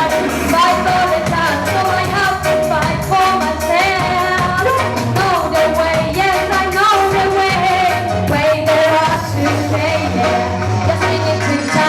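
Female reggae singer singing over a reggae riddim played through a sound system, with a steady beat and a strong bass line under the bending vocal melody.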